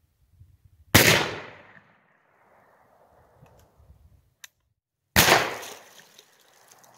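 Zulu shotgun firing shells loaded with a light charge of 2F black powder: a loud bang about a second in that fades over about a second, then a second similar bang about four seconds later.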